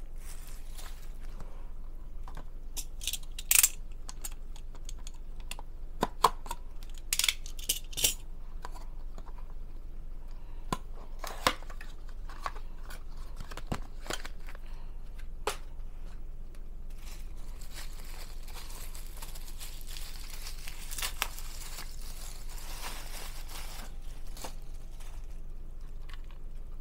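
Package being opened by hand: cardboard and plastic packaging crinkling and tearing, with scattered sharp clicks and handling knocks. From about halfway through comes a longer stretch of plastic rustling.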